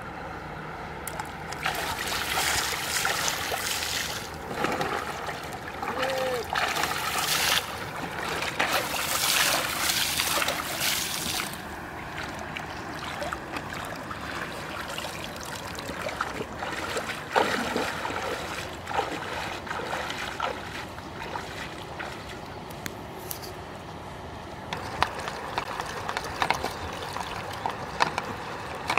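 Shallow river water splashing and sloshing as a person wades and works in it with his hands, busy for the first ten seconds or so, then small scattered splashes, picking up again near the end.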